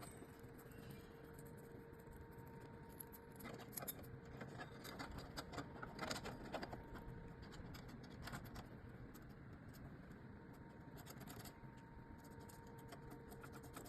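Faint clicks and light metallic rattling of garage door hardware being handled, scattered irregularly over a steady faint hum.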